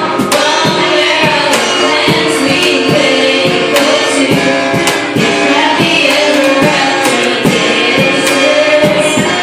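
Women singing a song through handheld microphones, accompanied by acoustic guitar and a steady hand-struck cajón beat.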